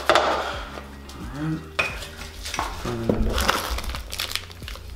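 Clinks, knocks and rustling of small parts being handled inside a box: a plastic bag holding a metal USB drive keychain is lifted out, with a few sharp knocks.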